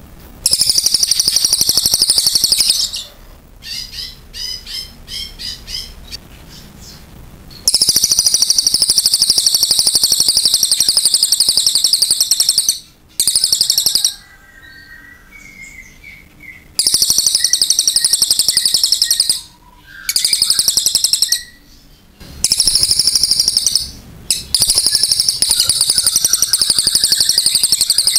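Crested jay (cililin) singing loudly in long, rapid, high-pitched rattling trills, in repeated bouts of one to five seconds with short breaks between. A short series of separate notes comes a few seconds in, and a few softer, lower calls come in the middle.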